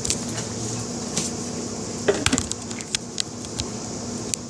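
Scattered light clicks and knocks of containers and utensils being handled while soap batter is coloured, with a louder cluster of knocks about two seconds in, over a steady low hum.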